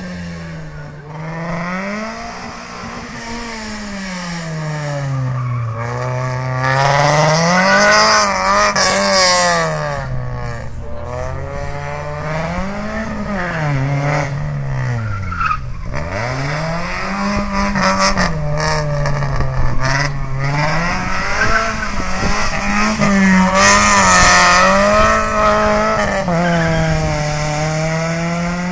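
Fiat Seicento with a 1.4 16V engine driven hard around a tarmac rally course. The revs climb and drop again and again as it accelerates, shifts and brakes for corners, with tyres squealing at times. Its gearbox is without third gear.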